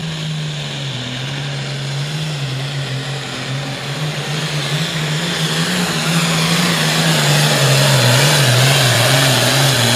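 Turbocharged diesel engine of a 9,300 lb Super Farm class pulling tractor running at full throttle as it hauls a weight-transfer sled. The engine note wavers up and down under load and the sound grows louder over the second half.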